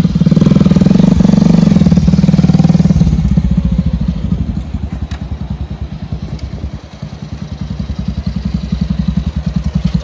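Motorcycle engine running close by with an even pulsing exhaust beat. It fades as the bike rides away, then grows louder again near the end as it comes back.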